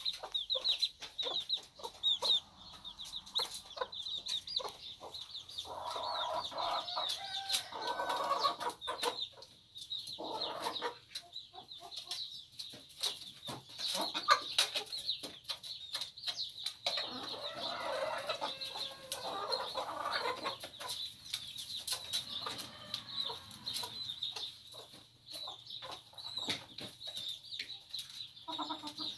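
Several hens clucking and calling as they feed, with louder bouts of calling twice, over busy high chirping and many quick sharp ticks of beaks pecking at the feed tray and metal bowl.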